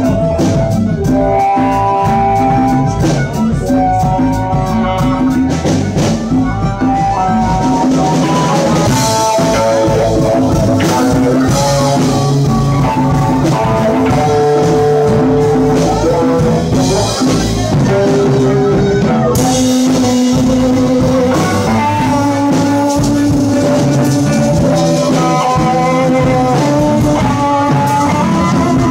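Live band jamming in a blues-rock style: guitar playing melodic lead lines over drums, with quick even cymbal ticks for the first few seconds.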